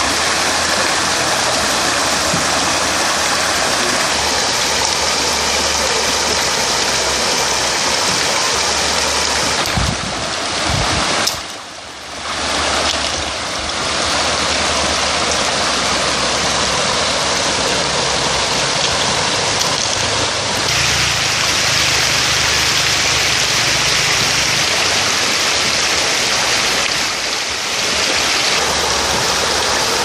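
Water rushing and splashing over rocks in a shallow, fast-flowing stream, loud and steady, dropping away briefly about a third of the way in.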